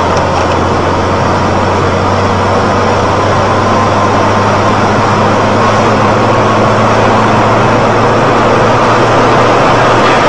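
Car driving on a rain-wet road, heard from inside: steady loud tyre hiss and road noise over a constant low engine hum.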